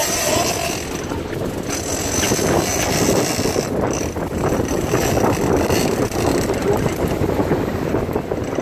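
Charter boat under way, its motor running with water rushing along the hull and wind buffeting the microphone, a steady noisy rush without clear breaks.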